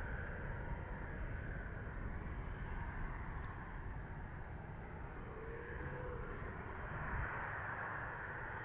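Cessna Citation twin-turbofan business jet running at low power on the runway, heard from a distance as a steady hiss and rumble.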